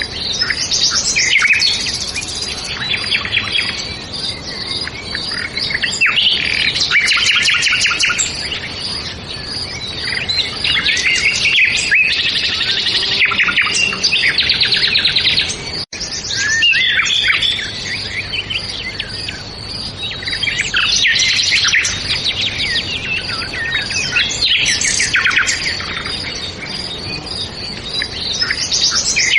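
Songbirds chirping and trilling in overlapping bouts that come and go every few seconds over a steady background hiss, with a brief break about halfway.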